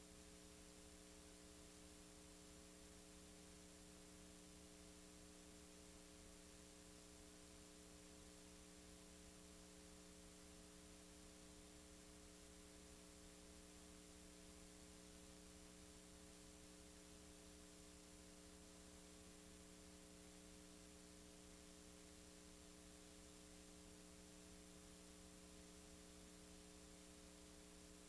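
Near silence: a steady electrical hum with faint hiss and no other sound.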